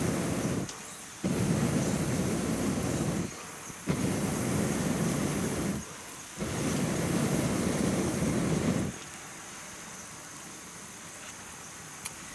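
Air blown onto a campfire in four long puffs of about two seconds each, with short pauses between, a low rumbling rush on the microphone; the blowing stops about nine seconds in, leaving a quieter steady hiss.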